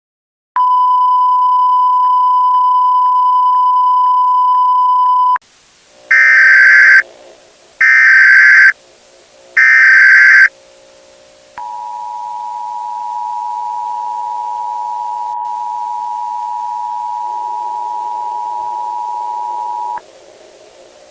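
A steady 1 kHz broadcast test tone for about five seconds. Then come three loud, screechy Emergency Alert System SAME data header bursts, each about a second long. The EAS two-tone attention signal follows, a steady 853/960 Hz chord held for about eight seconds.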